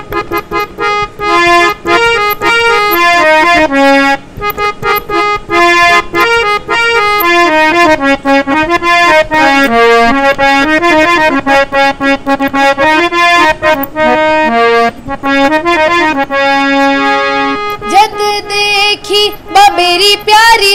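Harmonium, a bellows-pumped free-reed keyboard, playing a quick, rhythmic melody of reedy notes as a prelude. Near the end a boy's voice comes in, singing a bhajan over it.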